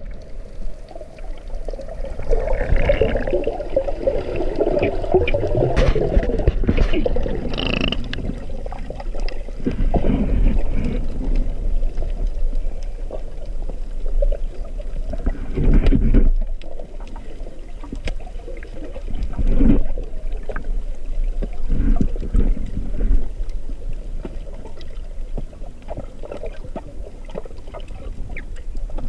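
Muffled underwater sound picked up through a waterproof camera housing: water sloshing and surging around a snorkeler swimming, rising and falling in irregular swells.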